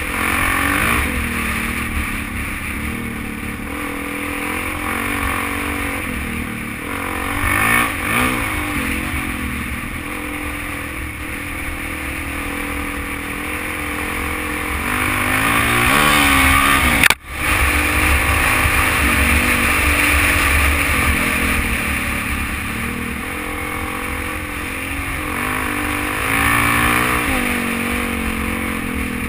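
Single-cylinder dual-sport motorcycle engine running under way on a dirt trail, its pitch rising and falling as the throttle is worked, with wind rushing past. About seventeen seconds in the pitch climbs, then the sound cuts out for an instant.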